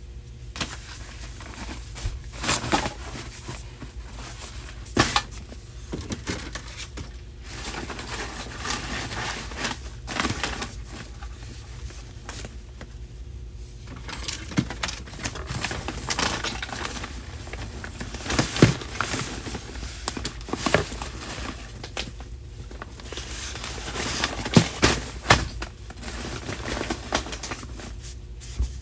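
Objects being handled and sorted, with irregular rustling and crinkling of plastic and paper, scattered clicks and several sharper knocks, over a steady low hum.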